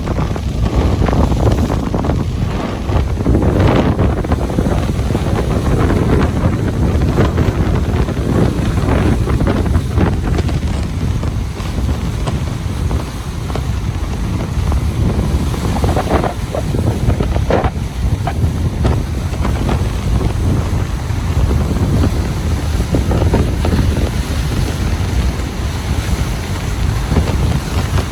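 Ocean surf breaking and washing on a beach, with wind buffeting the microphone in a steady low rumble.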